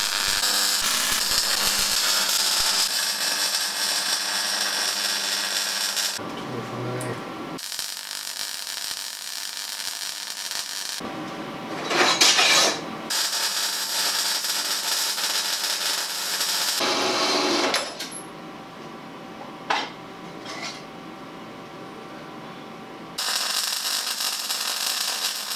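Electric arc welder crackling and hissing as it lays welds on steel, in several runs of a few seconds each with short pauses between. About halfway through there is a brief louder rasp.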